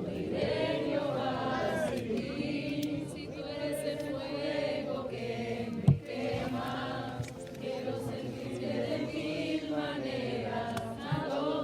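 Many voices singing and praying aloud together in a worship chorus, with a single sharp knock a little under halfway through.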